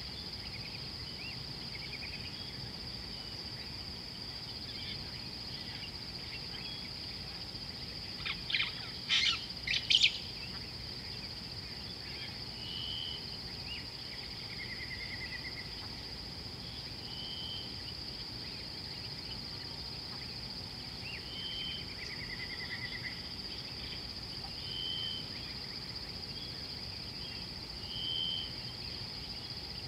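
Birds calling over a steady high insect drone: a short note repeats every three to four seconds and a brief trill comes twice. About eight seconds in, a quick run of four or five loud, sharp sounds stands out above everything else.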